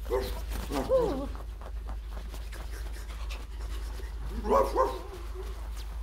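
Dog yaps and yelps voiced by people for a foley dub: a short yap at the start, a longer rising-and-falling yelp about a second in, and two quick yaps about four and a half seconds in. Faint light tapping runs underneath.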